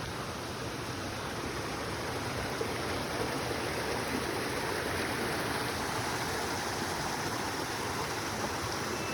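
Steady rushing of flowing water, like a stream or small cascade, an even hiss and rumble that holds at one level throughout.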